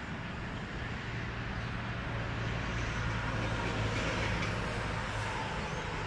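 Wood-Mizer LT40 Super sawmill running as its saw head is driven up the mast, a steady mechanical drone with a low hum that comes in about a second in.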